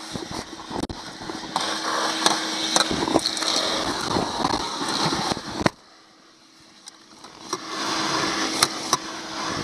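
Vacuum cleaner sucking dirt and debris off a boat's fibreglass floor through a corrugated hose: a steady rushing noise with a faint motor hum and scattered sharp clicks of grit going up the hose. A little past the middle the sound drops away sharply for about two seconds, then builds up again.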